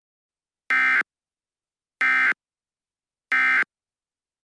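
Emergency Alert System end-of-message signal: three short, identical bursts of harsh buzzing digital data tones, each about a third of a second long and about a second apart. They mark the end of the alert message.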